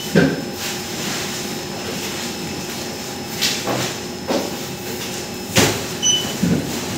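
Mail bags and parcels being handled in a sorting room: irregular thuds, knocks and plastic-sack rustles over a steady hum, with a short high electronic beep about six seconds in.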